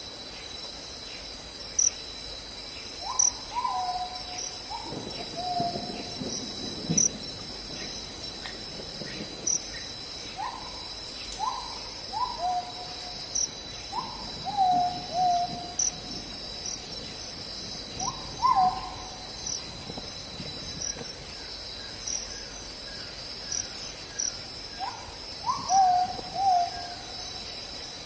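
Steady chirring of crickets or other night insects, with groups of two to four short hooting calls every few seconds, each call rising quickly and then dropping in pitch.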